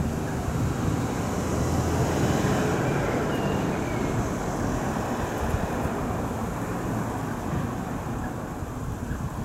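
Steady outdoor background rumble with no distinct event, slightly louder two to three seconds in.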